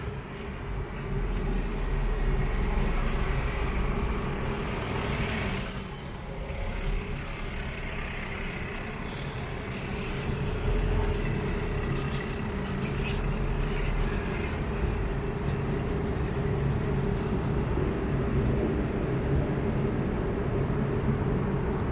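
A motor vehicle engine running steadily, a continuous low drone with a constant hum.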